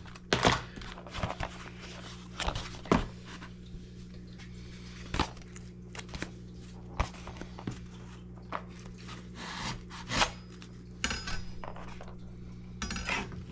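Hard plastic fishing lures and their packaging being handled: scattered clicks, knocks and short rustles at uneven intervals, over a steady low hum.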